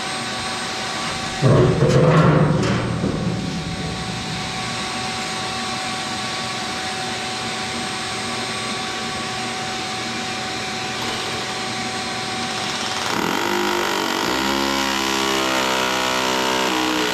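Steady machine noise with a loud clatter about a second and a half in. An engine starts near the end and settles into a steady idle.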